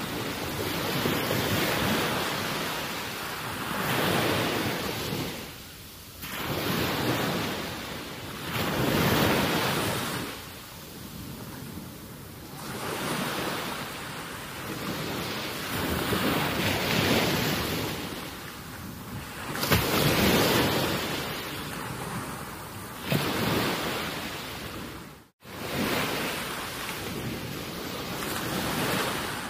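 Wind and waves: a rushing noise that swells and fades every couple of seconds, cutting out briefly near the end.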